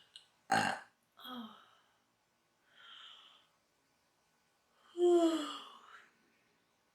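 A woman hiccuping and burping. A short, sharp hiccup comes about half a second in, with a smaller sound just after and a soft breathy one near three seconds. About five seconds in comes a louder burp about a second long, falling in pitch.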